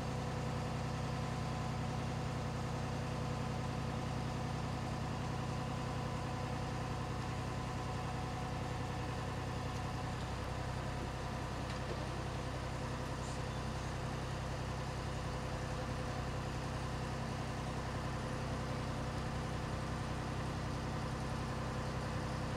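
Boom lift's engine running steadily, an even hum with a few constant tones that hold without change.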